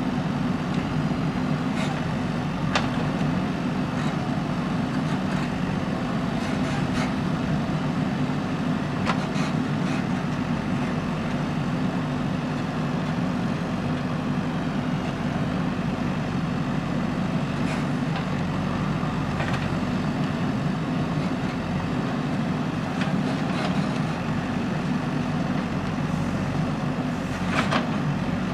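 JCB backhoe loader's diesel engine running steadily under working load, with a few short knocks scattered through it.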